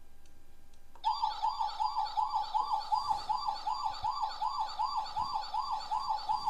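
Electronic siren sound from a battery-powered toy fire truck: a fast rising-and-falling wail, about three cycles a second, that starts about a second in and cuts off near the end.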